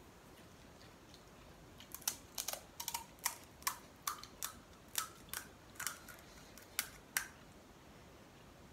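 Crisp, hollow puri shells being cracked open one after another with the fingertips: a dozen or more sharp little cracks, starting about two seconds in and stopping a second or so before the end.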